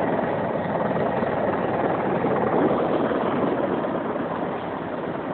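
Helicopter engine and rotor noise heard from inside the cabin as it comes in low to land, steady and unbroken, through a mobile phone's microphone.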